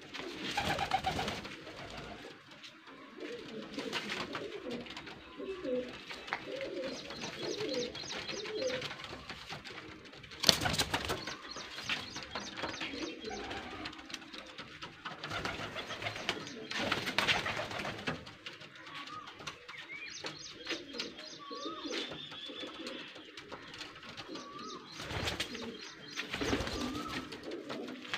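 Domestic high-flying pigeons cooing on and off in low, wavering calls. A few louder noisy moments break in, the loudest about ten seconds in.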